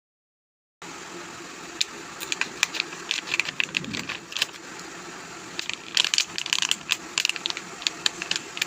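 Crisp crackling and clicking of plastic snack packaging being handled. It starts about a second in and comes in irregular bursts.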